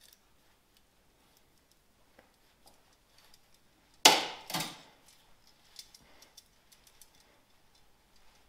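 Metal hand tools handled at a workbench: a brake-pipe flaring tool being fitted to a 5 mm steel brake pipe, with light clicks and ticks and two sharp clanks about half a second apart a little past the middle.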